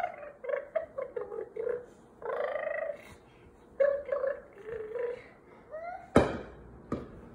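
A toddler babbling in short, rapid vocal sounds. A sharp knock comes about six seconds in.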